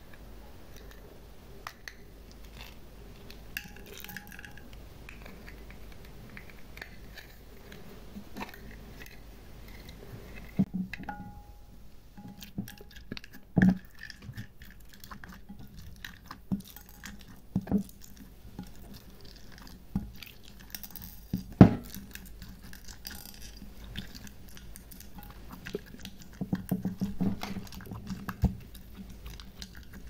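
Fingers poking and kneading clear slime in a glass dish: soft sticky squelching with scattered sharp taps and clicks against the glass, and a denser run of squishing near the end.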